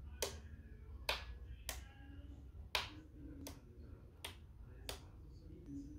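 A series of sharp, separate clicks, about seven in six seconds at uneven spacing, over a steady low rumble.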